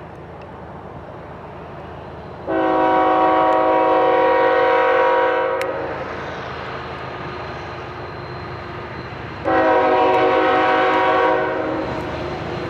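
Freight locomotive air horn on the lead GE ES44AC of a Canadian National train, sounding two blasts: a long one of about three seconds, then a shorter one of about two seconds some four seconds later. A steady low train rumble runs underneath.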